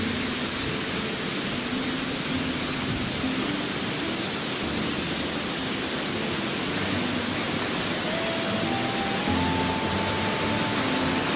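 Steady rush of a waterfall, with soft background music whose held notes step upward near the end.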